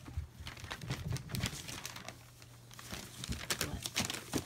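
Newspaper crinkling and rustling in irregular bursts under a German Shepherd puppy's paws as it moves about on the paper lining its pen.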